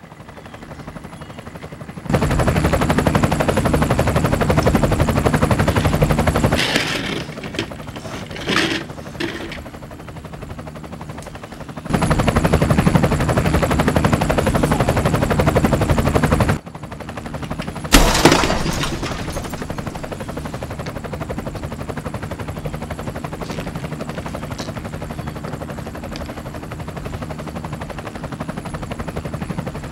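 Added sound effects: two long bursts of rapid, rattling pulses, then a sharp crash about 18 seconds in, followed by a steadier rumble.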